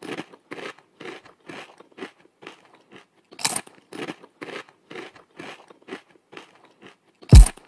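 Crisp crunching bites at a fairly even pace of about two a second, one louder than the rest, presented as an Armadillidium klugii isopod gnawing on cuttlebone. Near the end a loud, deep drum hit with a falling pitch comes in.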